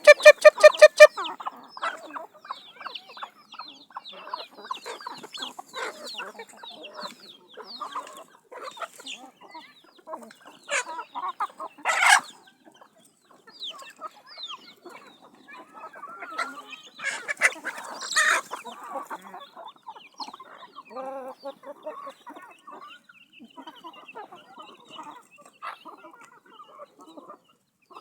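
A flock of chickens clucking and chirping, many short overlapping calls, with louder squawks about twelve and eighteen seconds in. A loud, rapidly pulsing squeaky tone opens the first second.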